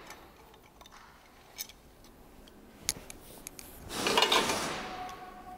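Metal engine parts and tools clinking as they are handled: a few light clicks, then a brief louder metallic clatter about four seconds in.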